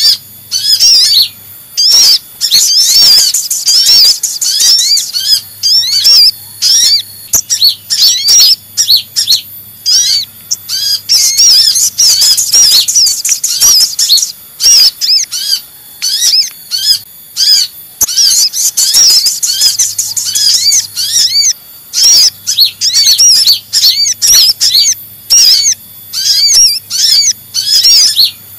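Sunbird lure calls: kolibri ninja (van Hasselt's sunbird) in its busy 'ribut' chattering, mixed with sogon calls, a continuous stream of rapid, high, sharp chirps and trills with only brief breaks.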